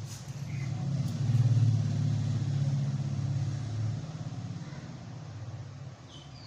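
Low engine rumble of a passing motor vehicle, swelling about a second in and fading away over the next few seconds.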